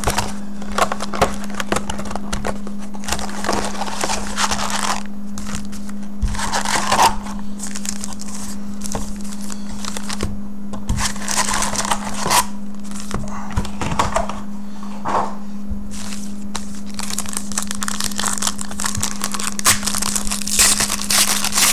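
Foil trading-card pack wrappers crinkling in scattered bursts as packs are handled and one is torn open, over a steady low hum.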